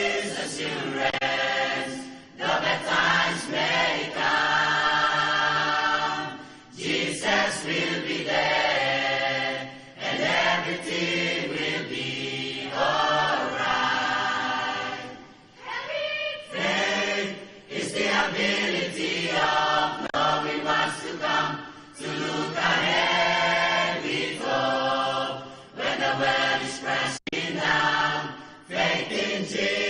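Mixed choir of young women and young men singing together, in phrases with short breaks between them.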